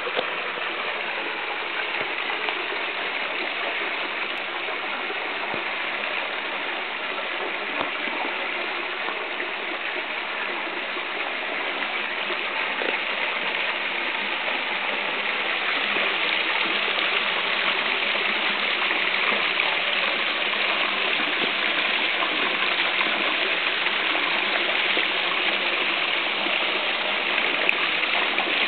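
Steady rush of flowing river water, growing somewhat louder about halfway through.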